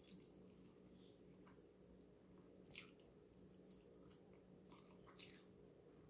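Faint mouth sounds of eating Samyang spicy instant noodles: chewing, with a handful of short, soft wet sounds spread through, over a low steady hum.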